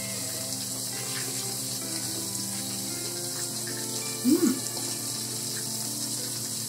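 Battered chicken pieces deep-frying in hot oil in a frying pan: a steady sizzling hiss. A short vocal 'uh' cuts in about four seconds in.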